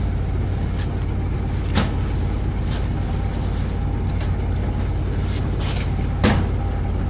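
A boat engine running with a steady low drone. Two sharp knocks cut through it, one about two seconds in and another near the end.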